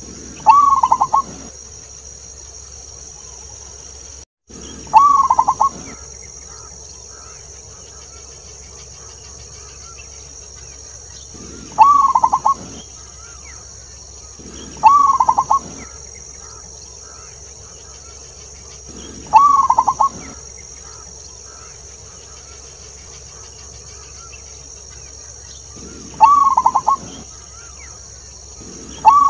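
Zebra dove (perkutut) singing: a short phrase of quick rolling coos, about a second long, repeated six times a few seconds apart, with another starting right at the end. A steady high hiss runs underneath, and the sound drops out for a moment about four seconds in.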